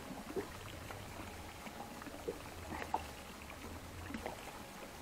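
Water lapping gently against the hull of a small inflatable boat, with a few short knocks and handling noises: one about half a second in and a cluster around two to three seconds in.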